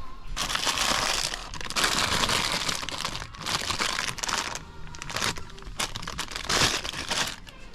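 Close crinkling rustle of crinkly material handled right at the microphone, in about six loud bursts, the longest lasting over a second.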